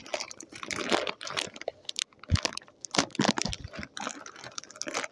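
Plastic pasta packet crinkling and crackling in the hands as it is twisted and worked open, a run of irregular crackles.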